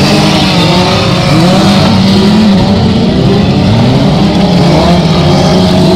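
Several stock car engines running hard together as the cars race in a pack. Their overlapping notes rise and fall as the drivers rev and ease off.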